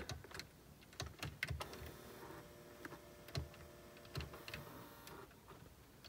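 Faint clicks of the Porsche 997 climate-control panel's push-buttons being pressed, with a small electric motor in the dash whirring faintly for about three and a half seconds in the middle, then stopping.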